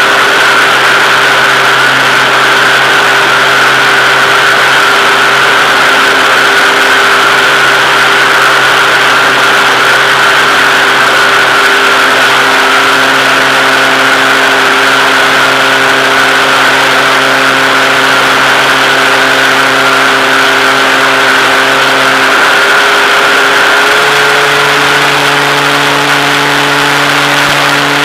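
A radio-controlled model airplane's motor and propeller running steadily, heard from on board, with a whine over wind rush. About three-quarters of the way through, the pitch wavers, then settles slightly higher as the throttle changes.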